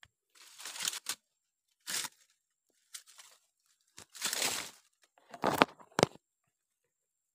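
Wooden digging stick scraping and crunching through wet mud and twigs in five short rough bursts about a second apart, the last two the loudest.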